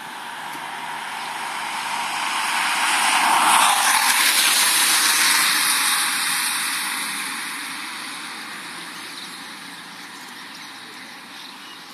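A car passing on a wet asphalt road, its tyres hissing through the surface water. The sound swells to its loudest about four seconds in, then fades slowly as the car drives away.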